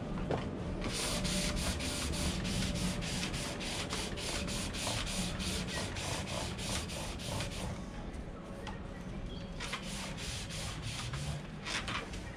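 Silver birch spindle being worked on a foot-powered pole lathe: a quick rhythmic rasping, several strokes a second, as the spinning wood bears against the tool. It stops about eight seconds in, then comes back in two short spells near the end.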